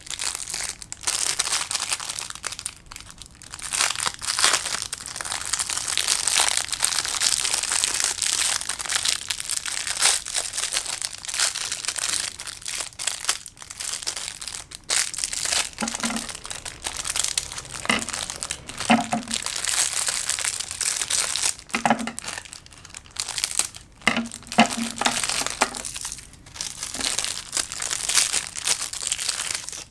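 Thin clear plastic pen bags crinkling and crackling as hands handle them, on and off with short pauses.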